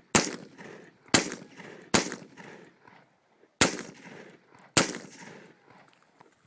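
Five gunshots from a firearm at a match stage: three about a second apart, a pause of over a second and a half, then two more, each trailing off in a short echo.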